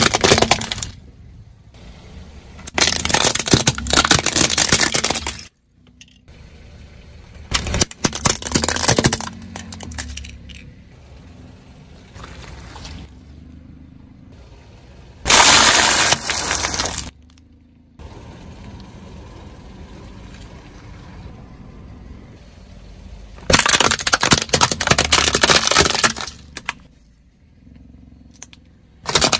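A car tyre rolling over and crushing plastic toys and other objects on asphalt. About six loud bursts of cracking and breaking, each a second or two long, are separated by quieter stretches of the tyre rolling.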